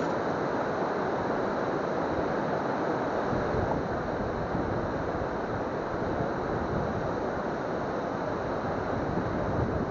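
Waterfall on a river rushing steadily, an even roar of falling water with no breaks.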